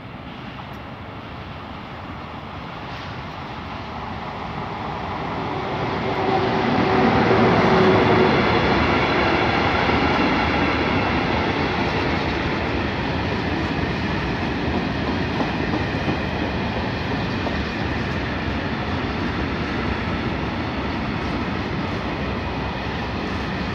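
Electric freight train approaching and passing close by. The sound builds over the first several seconds and is loudest about eight seconds in as the head of the train goes past. Then a long line of covered grain hopper wagons rolls by steadily, wheels clattering on the rails.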